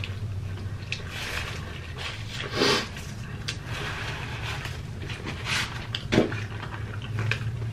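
Close-miked eating sounds: a man chewing a mouthful of burger, with several short, loud breaths through the nose and mouth, the strongest about two and a half seconds in. A steady low hum runs underneath.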